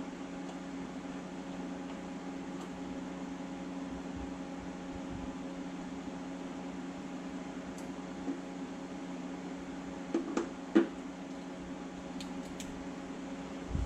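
A steady mechanical hum with a few short metallic clinks about ten seconds in, the loudest just before eleven seconds, and a couple of fainter ticks near the end. The clinks come from hand tools and bolts being handled while fitting a front differential skid plate under a Jeep Wrangler.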